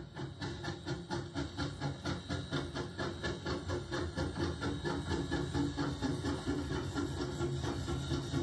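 Narrow-gauge steam locomotive working past with rhythmic exhaust chuffs, about four a second, over a hiss of steam. Its train of passenger coaches then rumbles by on the rails.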